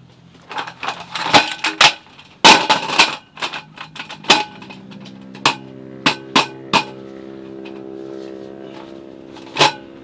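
Folding camping table with a slatted wooden roll-up top being unfolded and set up: a dense run of clattering knocks and clicks as the slats and folding legs snap into place, then a few single clicks. A motor engine drones steadily underneath from about four seconds in.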